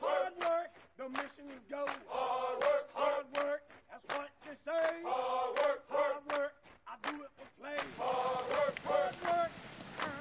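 A group of men chanting a military marching cadence in unison, with long held notes in a repeating call pattern, over sharp regular footfalls. A louder background hiss comes in about eight seconds in.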